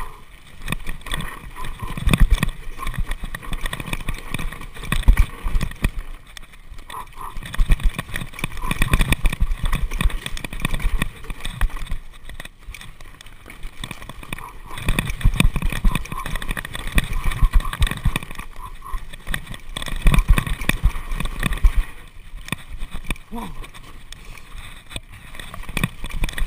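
Mountain bike riding down a rough dirt singletrack: the tyres run over the dirt and the bike rattles and knocks over bumps, with surges of low rumble every few seconds.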